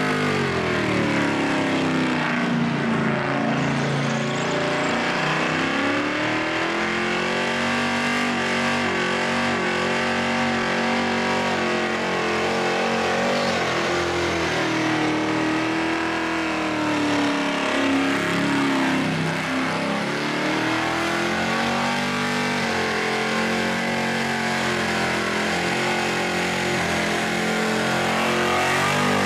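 Turbocharged Holden Commodore ute engine held at high revs during a burnout, the rear tyres spinning. The revs dip and climb back twice, a few seconds in and again about two-thirds of the way through.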